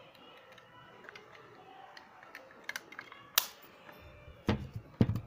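Handling noise from a tube-shaped portable Bluetooth speaker's casing being turned over in the hands: scattered light clicks and taps, then a couple of louder thumps near the end.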